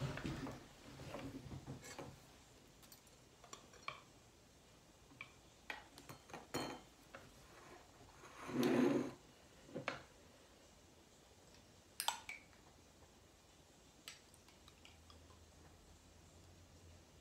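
A table knife clinking and scraping against a glass jam jar, with scattered light knocks of utensils and a plate on a wooden table. A louder, longer noise comes about halfway through and a sharp click a few seconds after it.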